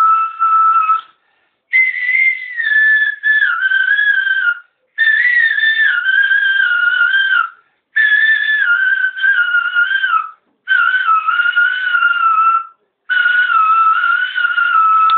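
A man whistling a slow, wavering folk melody in about six phrases of two to three seconds, each separated by a brief pause for breath, the pitch stepping down and ornamented within each phrase.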